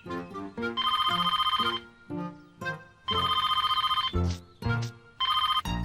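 Telephone ringing in three trilling rings, each about a second long, with short bouncy music notes between the rings.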